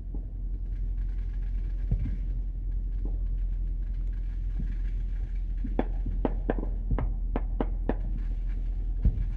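Steady low rumble of a car's engine and road noise heard from inside the cabin while driving. Late on, there is a quick run of about eight sharp clicks or pops.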